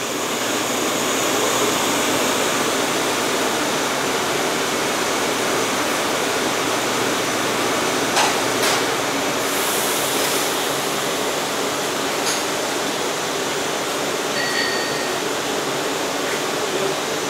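Steady rushing hiss of the air conditioning inside an R179 subway car, with a couple of light clicks about eight seconds in.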